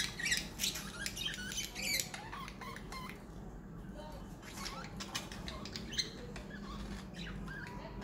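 Pet budgerigars chirping and chattering: runs of short, squeaky chirps, busiest in the first two seconds and again around the middle, over a low steady hum.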